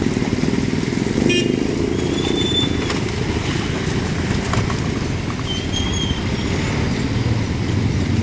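Road traffic with the steady low rumble of motor vehicles and motorcycles. A click comes about a second in, and two short high-pitched toots sound, one about two seconds in and one about six seconds in.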